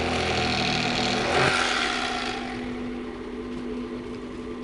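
Electric fillet knife running with a steady hum, louder and rougher for the first two seconds or so as the blades cut through blue catfish flesh.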